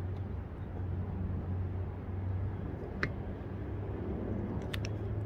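Steady low background hum, with a few faint clicks and taps from a marker being handled against a roof-rack crossbar, once about three seconds in and a couple near the end.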